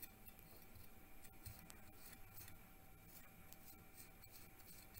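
Faint sound of a knife scoring the rind of a raw pork shoulder, with scattered light cutting clicks over a faint steady hum.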